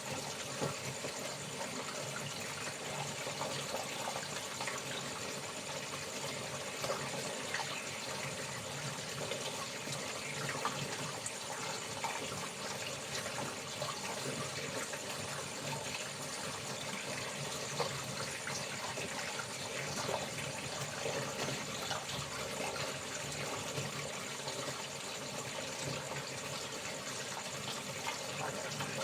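Water running steadily, as during hand-washed laundry, with insects chirping in the background.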